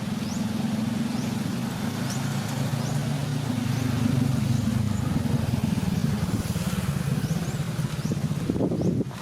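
A motor engine running steadily with a low hum, while short, high, rising chirps repeat over it every second or so. A few knocks or rustles come near the end.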